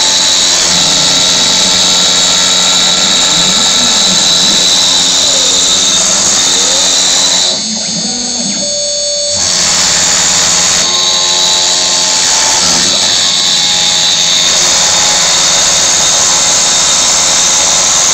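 CNC router engraving plexiglass: the spindle runs with a steady high whine while the axis motors make lower tones that rise and fall as the machine moves. About seven and a half seconds in, the sound drops quieter for nearly two seconds, then resumes.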